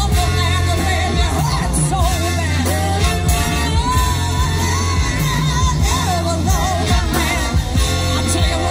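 Live band playing, with women singing the lead vocals over a strong, steady bass.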